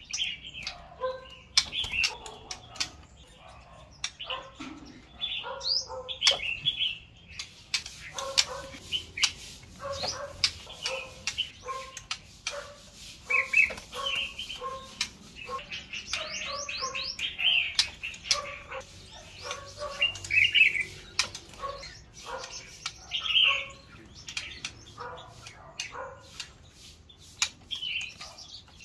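A caged white-rumped shama hopping and fluttering about its bamboo cage, with many sharp clicks and short whistled chirps and notes throughout.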